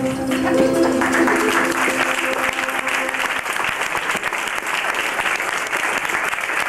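An audience applauding at the end of a live song, while the band's last chord, from acoustic guitar and saxophone, rings out and fades over the first few seconds. The applause starts about a second in and carries on steadily.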